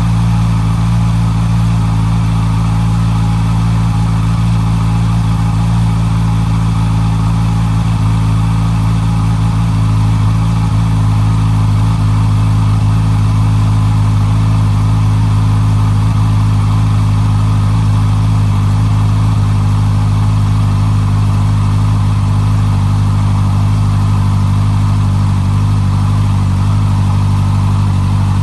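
Honda CB650R's inline-four engine idling steadily through its stock exhaust, holding an even pitch with no revving.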